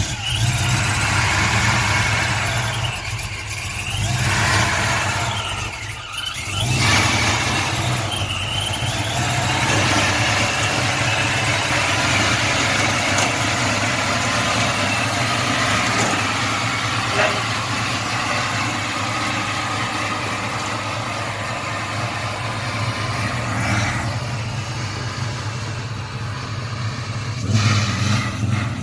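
A car engine running steadily, with brief changes in its note about 3 and 6 seconds in.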